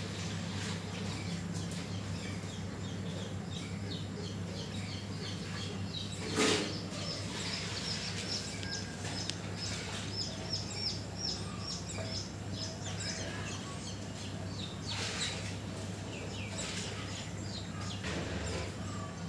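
Rats in a wire cage squeaking in quick runs of short, high notes over a steady low hum, with a brief rattle about six seconds in.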